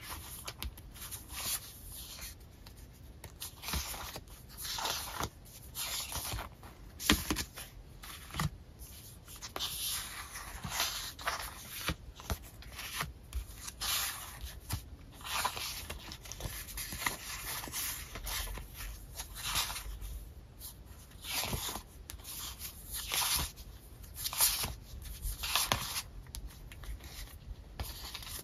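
Sticker sheets being flipped through and shuffled by hand: irregular rustling and sliding swishes of paper against paper, with one sharper tap about seven seconds in.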